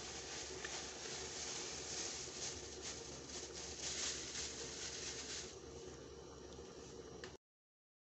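Thin plastic bag crinkling and rustling as grated coconut is squeezed and shaken out of it into a plastic basin; the rustling fades about five and a half seconds in, and the sound cuts out to silence near the end.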